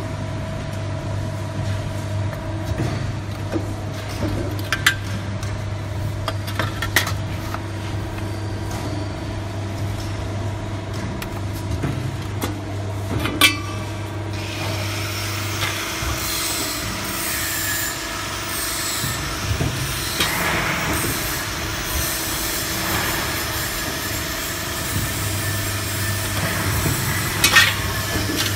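WE67K 125-ton CNC hydraulic press brake running: a steady hum with a few sharp metallic clicks. From about halfway a louder hissing whir takes over for several seconds, then the hum returns and the steel sheet clanks near the end as it is bent.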